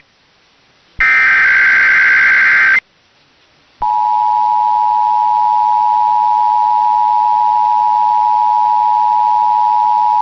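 Emergency Alert System SAME header data burst, a harsh warbling squawk lasting about two seconds, received over a radio broadcast. About a second of silence follows, then the EAS two-tone attention signal begins: a steady, loud dual tone held through to the end.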